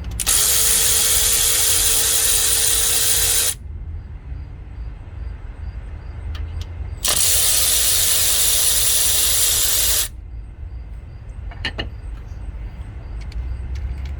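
Handheld power tool, an impact driver or drill, running in two steady bursts of about three seconds each, unfastening bolts during a timing-chain job on a Ford 5.4 V8. A low hum runs underneath, and a few small clicks follow near the end.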